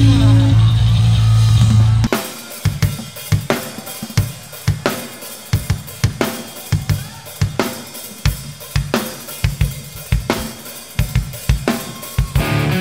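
A loud, sustained rock-band chord cuts off about two seconds in. A live drum kit then plays a steady beat alone, with bass drum, snare and cymbals, as the intro of the next song. Guitars come back in near the end.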